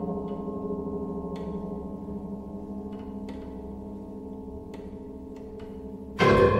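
Contemporary ensemble music with live electronics: a cluster of steady ringing tones held and slowly fading, with a few faint, irregular clicks. Near the end a sudden loud attack from the ensemble starts a new passage.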